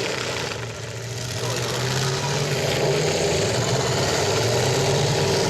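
Demolition derby truck engines running hard, the drone growing louder about a second in and rising and falling in pitch as the hung-up trucks strain against each other.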